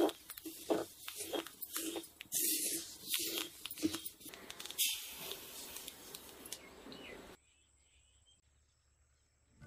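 Rustling and crackling in grass, a quick irregular run of noisy bursts that settles into a steadier hiss and then cuts off a little over seven seconds in.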